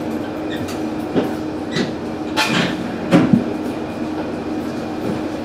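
Diesel railcar standing at a platform with its engine idling, a steady hum. Several sharp clicks and knocks come over it, about a second in, around two and a half seconds in, and a double knock around three seconds in.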